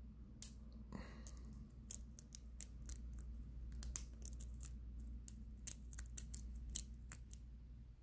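Faint, irregular metallic clicks and scrapes of a lock pick working the pin tumblers in the keyway of a Blossom BC04 brass padlock, held under heavy tension from a tension wrench, a few clicks a second with some louder than the rest.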